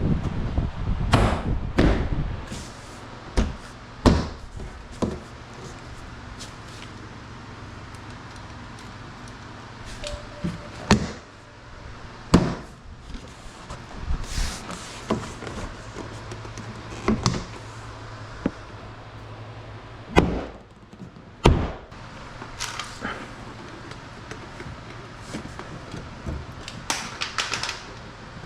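Work on an Infiniti G37 passenger door: scattered knocks, thumps and clicks as door parts are fitted and pushed into place, with a steady low hum beneath.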